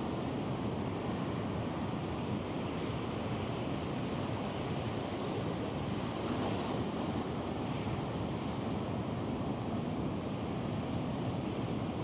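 Stock recording of ocean surf breaking continuously, a steady wash of waves with no single crash standing out.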